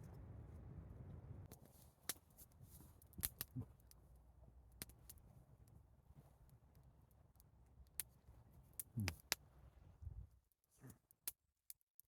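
Scattered sharp pops and crackles from a burning wood campfire, a dozen or so at irregular intervals. They sit over a low rumble that dies away near the end.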